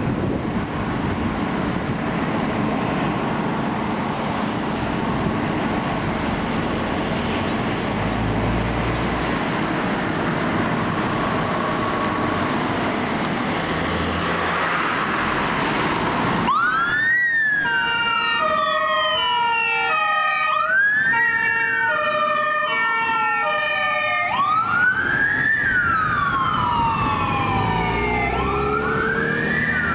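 Fire engines' engines running with a steady rumble as they pull out, then a little past halfway several emergency sirens start at once: rising-and-falling wails repeating every few seconds, layered over a stepped high-low two-tone pattern.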